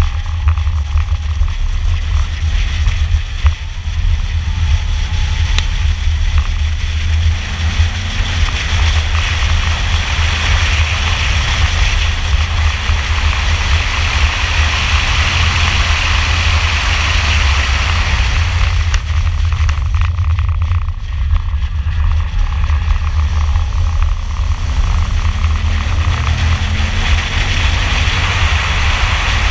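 Chevrolet Camaro V8 engine pulling hard at speed, heard inside the car with heavy wind and road rumble. The revs climb steadily near the end under full throttle.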